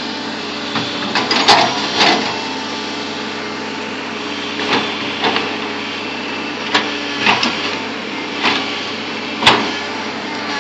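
Bulldozer engine running steadily, with a series of sharp metallic clanks and knocks at irregular intervals, the loudest near the end.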